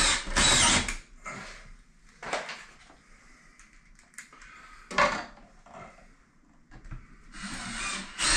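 Cordless drill-driver driving screws into a wooden stud to fix a plastic washer outlet box: a run of about a second at the start and another near the end, with light knocks and handling between.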